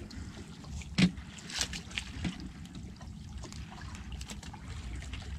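Water lapping against a small open boat's hull with a low wind rumble on the microphone, and scattered light clicks and taps from handling the line and a small hooked fish, the sharpest about a second in.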